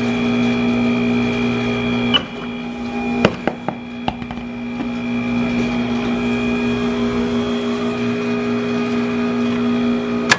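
Tyre-shop machine's electric motor running with a steady hum. It drops about two seconds in, with a few sharp clicks and knocks a second or two later, then runs on steadily.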